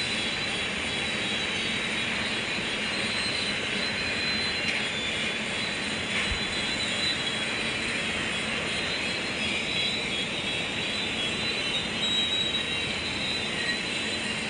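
JCB 3DX backhoe loader's diesel engine running steadily, with a constant drone and no change in speed.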